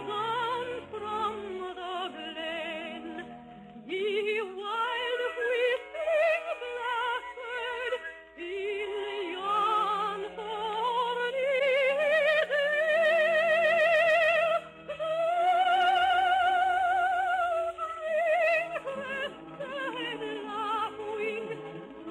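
Soprano singing a Scottish ballad with orchestral accompaniment, in a slow, lyrical style with wide vibrato and long held high notes, the longest about two-thirds of the way through.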